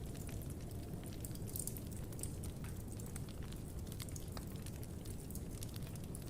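Wood bonfire crackling: scattered sharp pops and snaps over a low, steady rumble of burning.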